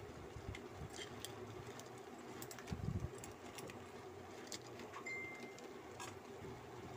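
Wooden spatula tossing noodles in a metal pan: scattered light clicks and scrapes, with a soft thump about three seconds in, over a steady low hum. A brief high beep-like tone sounds a little after five seconds.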